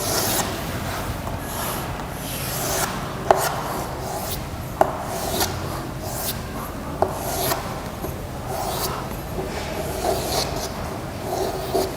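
Hand-drawing and writing: a pen or marker scratching in uneven strokes across the writing surface, with a few sharp taps of the tip.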